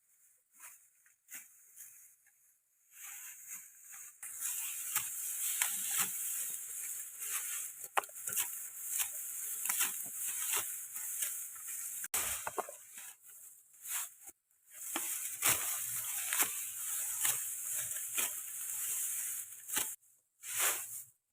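Dry rice stalks rustling and crunching as they are handled and cut, with many crisp snaps; it starts a few seconds in and stops briefly twice.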